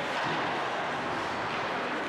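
Steady ice hockey rink noise during play: skates cutting the ice and the general hiss of the arena, with no distinct stick or puck hits.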